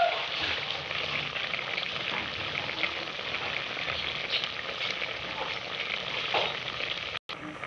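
Paksiw broth of vinegar and water simmering in an aluminium pot with milkfish and bitter gourd: a steady bubbling, crackling hiss. The sound drops out for a moment near the end.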